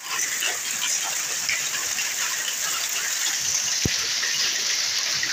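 Hailstorm: hailstones and heavy rain pelting down in a steady dense hiss, with many small hard ticks of stones striking surfaces. One dull knock about four seconds in.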